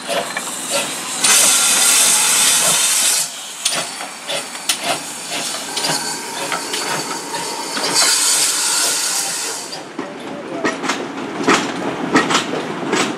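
Steam locomotive (GWR pannier tank 1369) pulling away, with two long loud hisses of steam from its open cylinder drain cocks, about a second in and again about eight seconds in. Coach wheels clicking over the rail joints run throughout.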